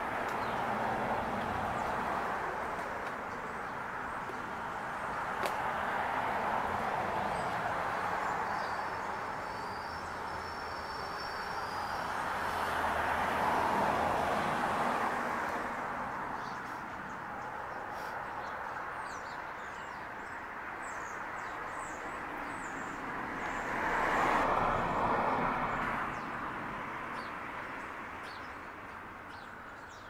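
Road traffic passing, the tyre noise swelling and fading several times and loudest about halfway through and again near the end, with faint bird chirps above it.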